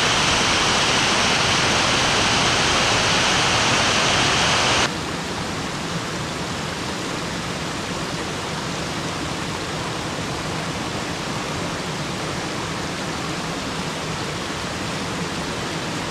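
River waterfall: a loud, steady rush of falling water. About five seconds in it drops abruptly to a quieter, duller rush.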